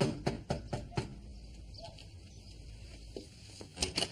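A fist knocking on a front door, five quick knocks in about a second. Near the end come a few lighter clicks as the door is unlatched and opened.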